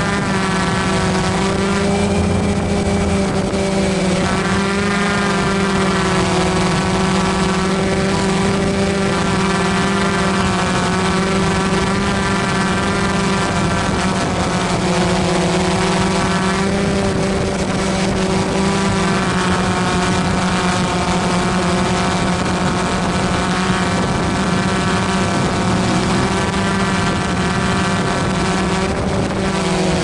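Steady motor drone: a low hum with a stack of overtones that waver slightly in pitch every few seconds, over a rushing noise.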